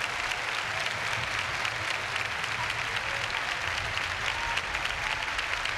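Large congregation applauding steadily in worship, with a few voices calling out faintly over the clapping.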